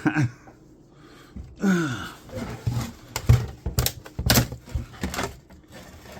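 Sharp clicks and cracks of plastic as a flat-screen monitor's casing is handled and pried apart, several of them in the second half.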